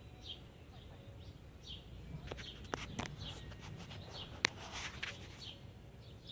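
Birds chirping, short high chirps repeating every half second or so, over a low steady background noise. A few sharp clicks come in the middle, the sharpest about four and a half seconds in.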